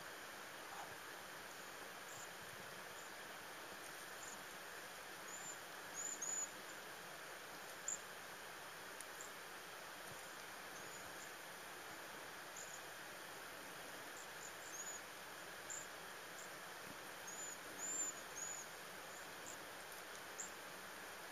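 Cedar waxwings giving high, thin, lisping calls: short single notes scattered throughout, with quick clusters about six seconds in and again near eighteen seconds, over a steady background hiss.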